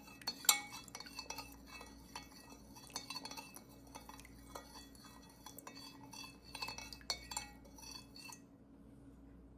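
A teaspoon, held upside down, stirring sugar into warm water, clinking irregularly against the sides of the container; the clinking stops about eight and a half seconds in.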